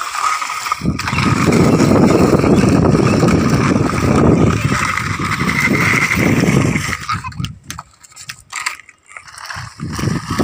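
Plastic wheels of hand-pushed toy trucks rumbling and scraping over rough concrete. About seven seconds in it gives way to scattered clicks and knocks as the toys are handled.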